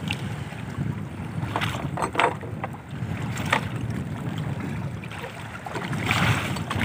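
Wind buffeting the microphone and water lapping against the hull of a small outrigger fishing boat, with a few short knocks a couple of seconds in and a brief rush of noise near the end.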